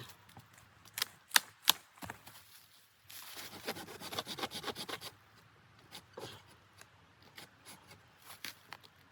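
Three sharp knocks in quick succession, then about two seconds of rapid scraping or rubbing, followed by scattered light clicks and handling noises.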